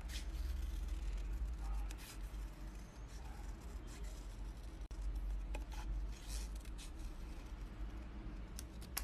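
Small scissors snipping printed paper: a run of faint, short cuts as a figure is cut out by hand around its outline.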